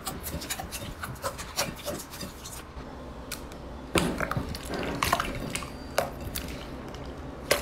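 Clear jelly slime squeezed and kneaded by hand: wet squishing with a string of irregular sticky pops and clicks, a few of them louder about four, five and six seconds in.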